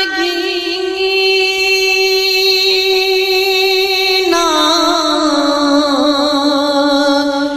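A man singing a naat without instruments. He holds one long note for about four seconds, then steps down in pitch into a wavering, ornamented line.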